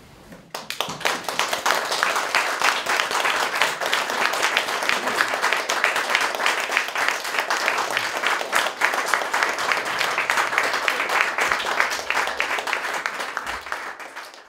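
Audience applauding, starting about half a second in and cutting off suddenly near the end.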